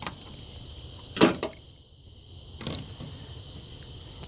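Steady high-pitched insect trilling, typical of crickets, with one sharp click about a second in and a couple of fainter clicks after it.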